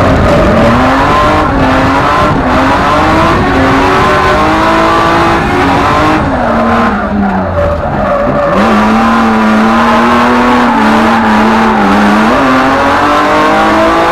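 Drift car's engine at high revs, heard from inside the cabin, its pitch rising and falling with the throttle through the slide, then holding steady for a few seconds in the second half. Tyres screech as the car slides.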